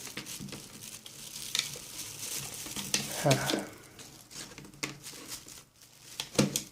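Rustling and handling of a network cable, with a run of small plastic clicks as its RJ45 plug is fitted into the port of the cable tester.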